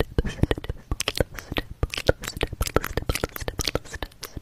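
Close-miked ASMR trigger sounds: a rapid run of crisp clicks and crackles, several a second.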